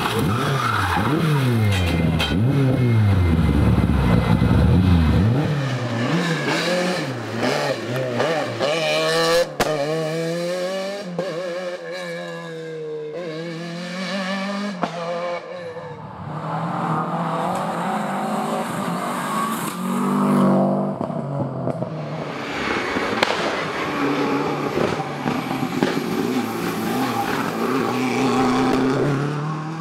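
Rally cars passing one after another at full throttle, engines revving up and dropping through gear changes with pops, and tyres squealing as the first car, a Ford Escort Mk2, slides through a wet tarmac hairpin. Near the end a Peugeot 307 WRC revs past on gravel.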